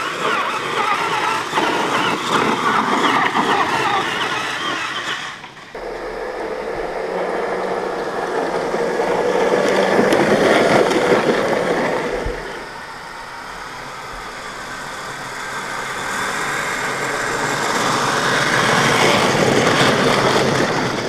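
1/10-scale RC crawler trucks (a Traxxas TRX-4 and an Axial SCX10 II) driving over dirt and gravel: the whir of their electric motors and geared drivetrains mixed with tyre crunch. The sound cuts off abruptly about five seconds in, then swells and fades as a truck passes close, loudest about ten seconds in and again near the end.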